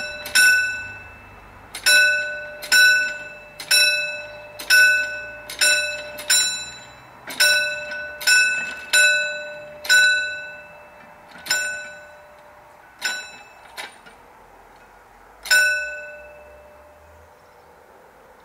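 Warning bell of a mechanical railway-crossing barrier ringing with about fifteen single strikes, irregular at roughly one a second, each with a clear ringing note that dies away. The strikes space out and stop about 15 seconds in.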